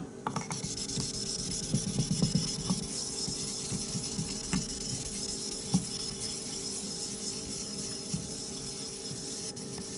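A Botan nagura stone rubbed back and forth on a wet Chosera 3000 whetstone to raise a slurry: a steady, gritty scrubbing of stone on wet stone.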